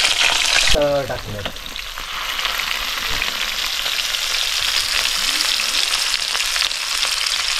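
Marinated whole fish frying in oil on a tava: a steady sizzle with fine crackling spatter. The oil spits hard because of the water coming off the fish.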